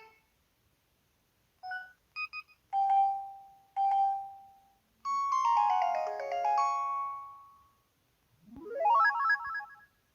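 Built-in electronic sound effects of an LG Cyon KH1200 mobile phone, played one after another. There are short blips, two single chime tones that fade out, a falling run of notes about five seconds in, and a quick rising run of notes near the end.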